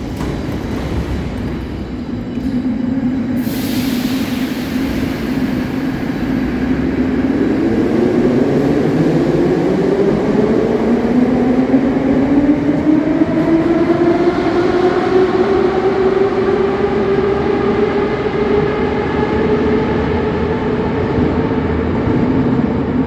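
Vintage metro train pulling out of a station: a short hiss of air about three and a half seconds in as the doors close, then the traction motors' whine rising steadily in pitch as the train accelerates away over a low rumble of wheels.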